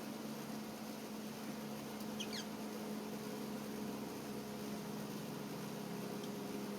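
A pet lovebird gives a short, high chirp about two seconds in, and a fainter one near the end, over a steady low hum.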